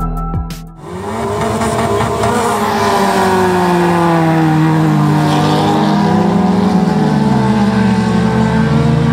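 Several stripped-down banger race cars running together, their engines revving up and down at the start line and pulling away across the dirt.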